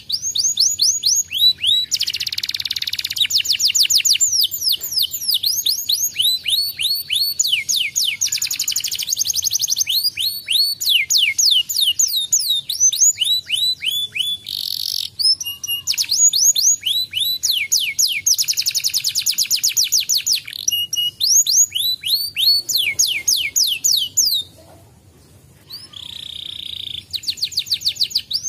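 Domestic canary singing a long, fast song of rapid trills, each a run of quickly repeated high, downward-slurred notes. There is a brief pause about 24 seconds in, then the song resumes.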